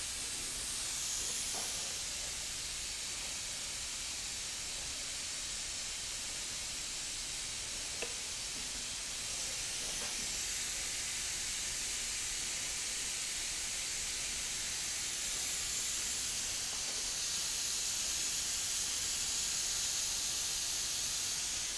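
Steady, even hiss with one faint tick about eight seconds in.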